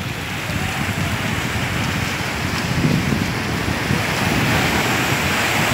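Surf washing up on a sandy beach in a steady hiss, with wind buffeting the microphone.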